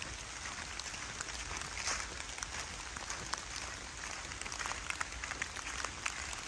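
Rain falling steadily on the forest canopy and leaf litter, with many single drops ticking, and footsteps rustling through fallen leaves.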